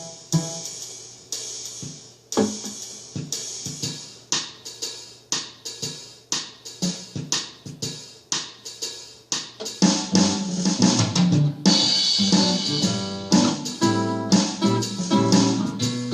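Instrumental intro on a Yamaha keyboard's backing accompaniment: a steady drum-kit beat plays alone, then bass and chords come in about ten seconds in and the music gets louder.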